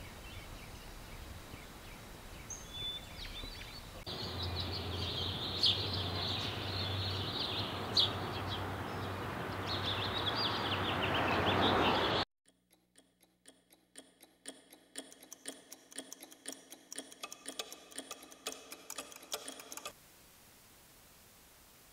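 Birds chirping over an outdoor background, then a rush of noise that swells louder and cuts off suddenly about twelve seconds in. A rapid, regular ticking follows and stops near the end, leaving a faint hiss.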